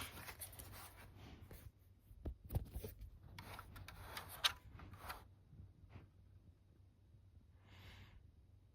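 Smoke detector being handled: faint rustling with several sharp clicks and knocks over the first five seconds, then a short breath near the end.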